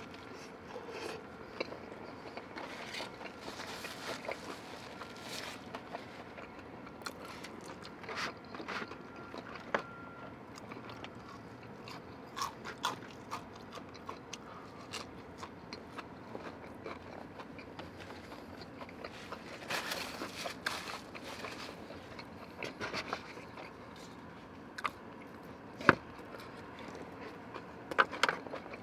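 Eating sounds of a man biting and chewing breaded fried chicken tenders, with scattered short clicks and one sharp click near the end.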